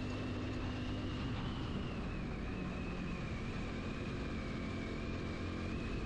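A two-wheeler's engine running steadily at cruising speed, heard from the rider's seat as an even hum with road noise and a faint high steady whine.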